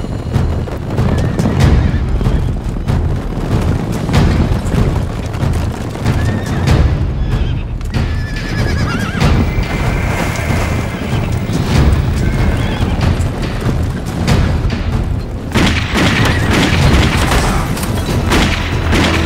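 Loud film action soundtrack: dramatic music with repeated heavy thuds and impacts, and a louder, brighter passage near the end.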